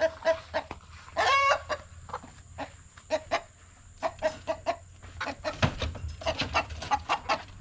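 Agitated chickens clucking in quick runs of short calls, with one longer, louder squawk about a second in; the rooster is riled up as his hens are caught.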